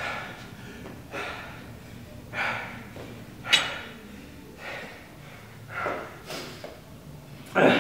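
A man breathing hard, catching his breath after intense exercise: heavy, noisy exhales about once a second, the loudest one near the end.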